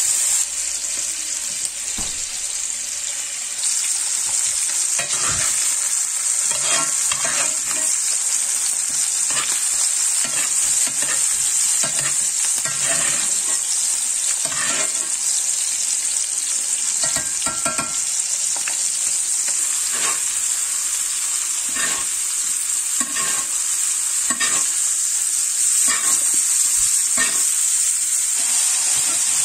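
Wagyu steak frying in butter in a cast-iron skillet: a steady sizzle, with repeated short clinks and scrapes of a metal spoon against the pan as the hot butter is basted over the meat.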